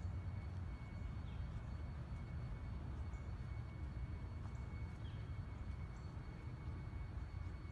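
Steady low rumble with a faint continuous high whine, and a few faint short chirps about a second and five seconds in.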